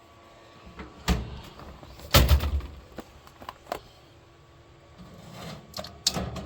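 Irregular clunks and clicks of a sublimation oven and its parts being handled with heat gloves. The loudest knock comes about two seconds in, with lighter clicks after it.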